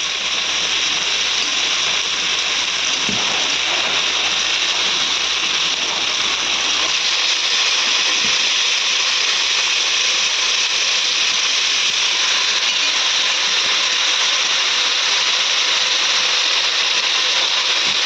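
Chicken pieces and sautéed onions sizzling steadily in hot oil in a cooking pan.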